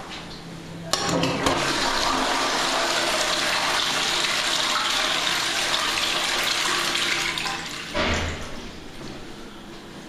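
Wall-hung Allia Paris toilet flushed by a Geberit Giant push button: a click about a second in, then water rushing loudly into the bowl for about six seconds. A brief surge comes near the end, and the flush then dies down to a fainter hiss.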